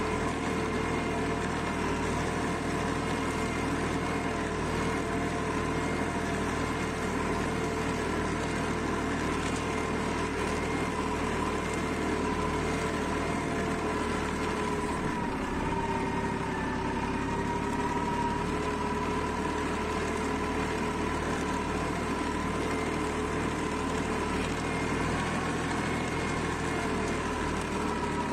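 Erkunt Kısmet 55e B tractor's diesel engine running steadily under load as it pulls a nine-tine chisel plough through the soil. The engine note sags slightly about halfway through, then picks back up.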